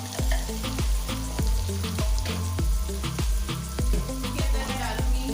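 Beef or mutton brain frying in hot oil with onion and garlic-ginger paste: a steady sizzle as it is stir-fried. Background music with a steady beat and bass line plays underneath.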